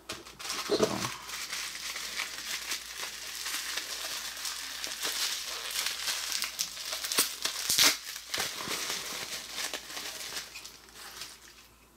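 Plastic bubble wrap crinkling and rustling as it is pulled open by hand, with a loud sharp crackle about eight seconds in.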